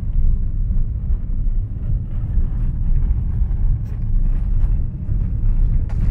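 Road noise inside a car cabin on a broken, potholed road: a steady low rumble from the tyres and suspension, with a few faint rattles from the dashboard.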